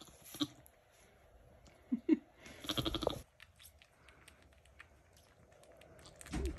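Nigerian Dwarf goat giving several short low bleats, the longest and loudest about three seconds in, with faint rustling and crunching of the bedding between calls.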